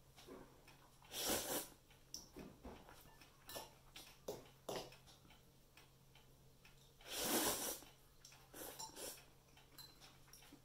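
Spaghetti slurped off a fork twice, each a short noisy suck of about half a second, with light clicks and scrapes of a fork against a ceramic bowl in between.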